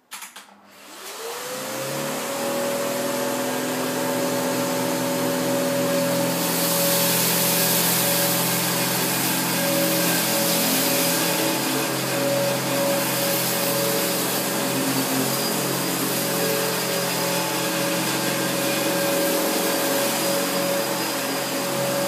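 Two upright vacuum cleaners, a 1984 Hoover U7008 and a 2001 Panasonic Icon, switched on together with a click. Their motors rise in pitch over about a second and a half, then run steadily while being pushed over carpet.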